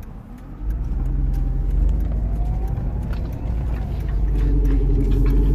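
Mercedes-Benz W211 E-Class on the move, heard from inside the cabin: a steady low rumble of engine and road that comes in about half a second in and grows louder near the end. The car is running smoothly with no malfunctions.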